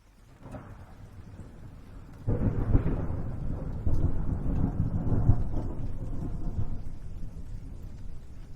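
A thunderclap: a soft low rumble builds, breaks into a loud crash about two seconds in, and rolls on, slowly fading.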